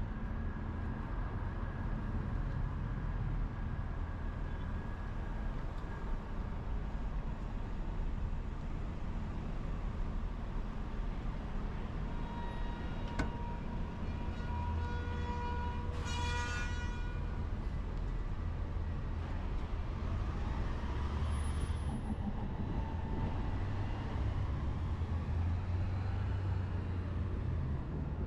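City street traffic rumbling steadily as vehicles pass. Around the middle a brief high-pitched tone with overtones rings out for a few seconds.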